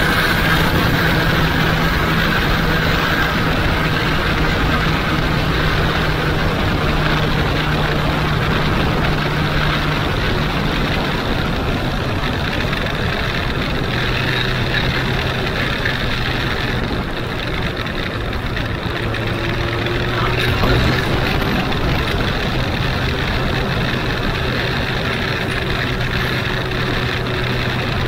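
Huanglong 600 motorcycle's inline-four engine running at a steady cruise under wind and road noise. The engine note drops to a lower steady pitch about a third of the way through.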